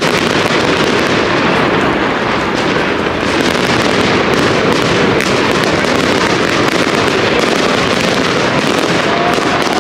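Aerial fireworks going off in a continuous barrage: dense, rapid crackling and bangs with no pause, staying equally loud throughout.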